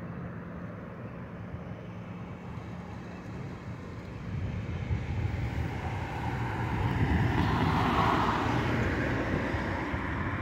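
Road traffic at an intersection: a steady traffic hum, with a passing vehicle's tyre and engine noise swelling about halfway through, loudest a little later, then fading.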